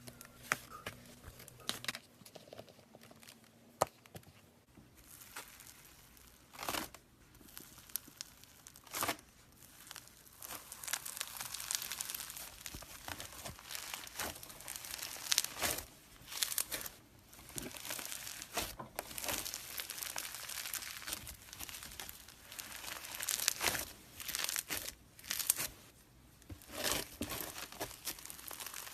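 Hands playing with slime, giving a run of small crackling clicks and crinkles. The clicks are sparse at first and grow denser and louder after about ten seconds, with short pauses between squeezes.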